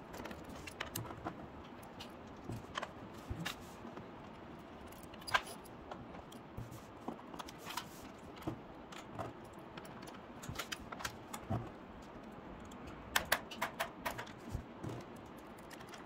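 Light, irregular clicks and taps of a precision screwdriver loosening the screws of a ThinkPad T580 laptop's lower cover, with small knocks as the laptop is handled; a quick run of clicks comes about thirteen seconds in.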